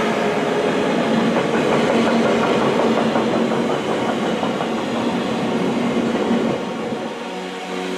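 A freight train of double-deck car-carrier wagons rolling past at close range, with a steady wheel-on-rail rumble and clatter. The noise drops off about seven seconds in.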